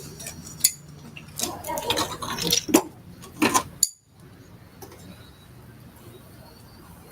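Metal tools and small engine parts clinking and knocking against each other, a run of sharp clinks over the first four seconds, then only a faint steady hum.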